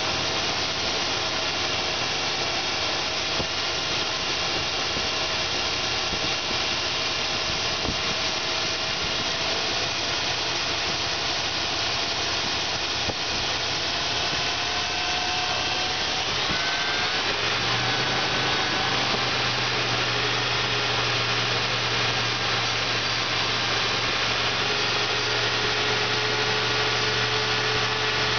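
2000 Dodge Durango engine idling steadily during a running test. Its note shifts slightly about two-thirds of the way in.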